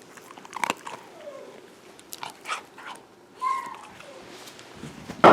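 A puppy chewing and mouthing a duck wing, with scattered crunching clicks and crackles, a brief squeak about three and a half seconds in, and a sharp knock right at the end.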